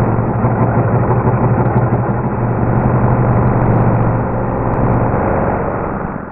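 Black & Decker jigsaw cutting through a plywood sheet, its motor and reciprocating blade running in a steady, loud buzz. The low hum drops away about five seconds in and the saw winds down near the end.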